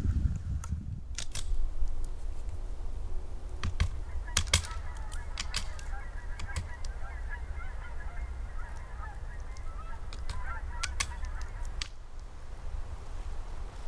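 A flock of geese honking, a dense chatter of calls that starts about four seconds in and stops near the end, over a steady low wind rumble on the microphone and a few sharp clicks.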